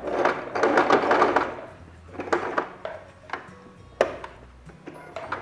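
Domestic electric sewing machine stitching in a quick run for about two seconds, then a few separate clicks and knocks as it slows and stops near the fabric's edge.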